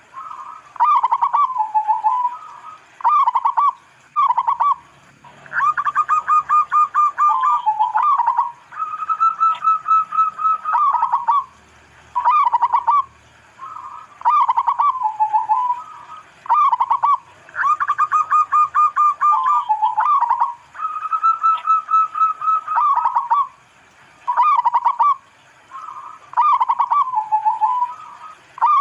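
Zebra dove (perkutut) cooing in repeated phrases, each made of quick stuttering notes and falling notes that end in a longer held note, with short pauses between phrases.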